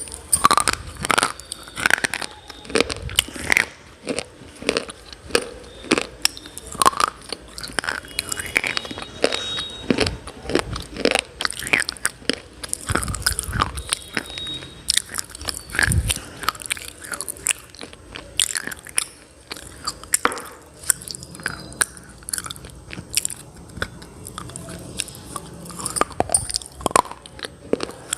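A person biting and chewing hard, chalky pieces of slate pencil and baked clay close to the microphone: a steady run of sharp, crisp crunches, several each second.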